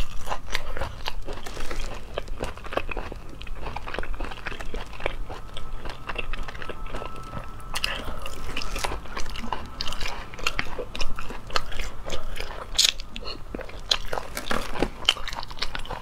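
A person biting and chewing cooked cat's eye snail (turban snail) meat close to a clip-on microphone, with many irregular sharp clicks of the teeth. The meat is tough and hard going on the teeth.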